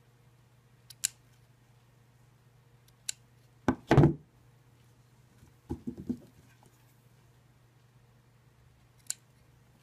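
Scissors snipping small notches into a fabric seam allowance: a few short, sharp snips spread out, with a louder snip and fabric handling about four seconds in.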